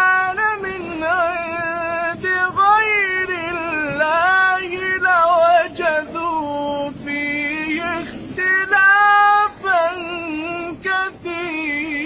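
A man's voice chanting Quran recitation in a high, melodic, ornamented style, with long held and wavering notes in phrases of a few seconds and short breaks between them.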